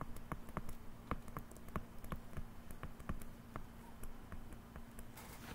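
Faint, irregular clicks of a stylus tip tapping on a tablet screen during handwriting, a few a second, over a low steady hum.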